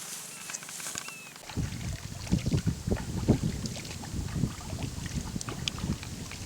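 Wind buffeting the microphone, starting about a second and a half in as an uneven low rumble in gusts.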